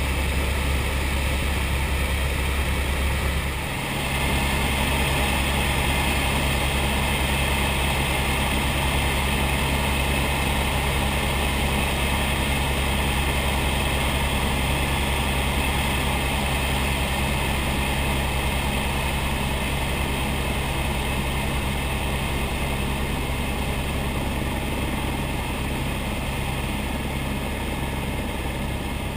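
Helicopter in flight heard from inside the cabin: a loud, steady drone of rotor and turbine engine with a low hum and an even rushing hiss. About four seconds in it dips briefly and its tone shifts slightly.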